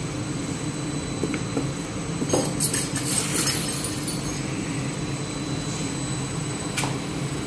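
Steady low rumble and hum of bakery machinery, with a thin high whine over it. A brief cluster of clattering taps comes about two and a half seconds in, and a single sharp tap comes near the end.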